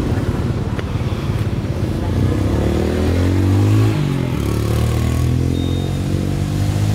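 A motor vehicle's engine running, its pitch rising over a couple of seconds and then dropping about four seconds in.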